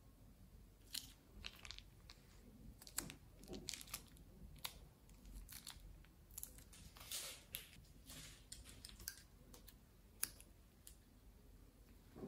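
Scattered small crunches and crinkles, with a longer rustle about seven seconds in, as a plastic piping bag of slime is squeezed and its tip pressed into foam beads.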